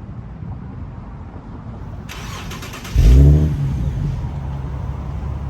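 Infiniti G37's 3.7-litre V6, still on its stock catalytic converters, cranked by the starter about two seconds in. It catches with a loud rev flare just under a second later, then settles into a steady idle.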